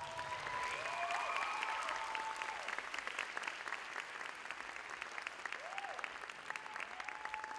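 Audience applauding with dense clapping, with a few voices calling out over it.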